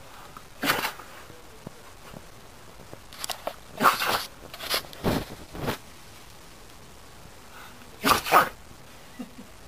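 An old dog sneezing several times in quick succession, short sharp bursts with the loudest near the middle and just before the end. The owner takes the sneezing for hay fever.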